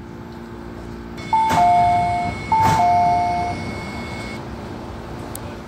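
Two-note electronic chime in an MTR train car, a higher tone falling to a lower one, sounded twice in quick succession about a second apart. The train car's steady low hum runs underneath.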